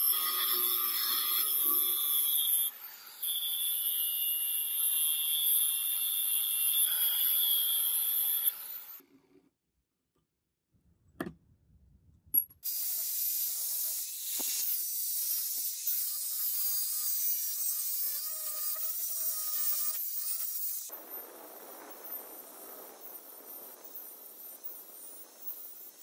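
Angle grinder with a thin cutting disc cutting into hardened spring steel, a steady high-pitched whine. About nine seconds in it stops for a few seconds of near silence broken by two sharp clicks, then the cut resumes; after about 21 seconds it gives way to a quieter, lower rushing grind.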